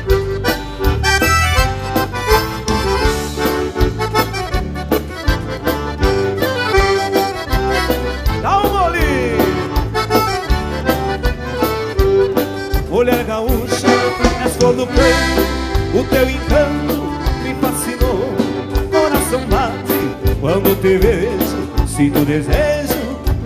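Instrumental break of a gaúcho dance-band song: accordion leading the melody over a steady bass and drum beat, with a keyboard solo running through it.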